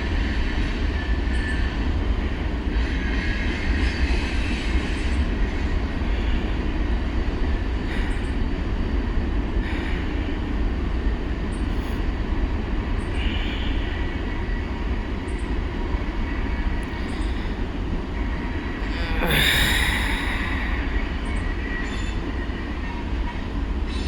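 Long CSX freight train rolling past, a steady rumble of wheels on rail with brief high-pitched wheel squeals now and then, the loudest about three-quarters of the way through.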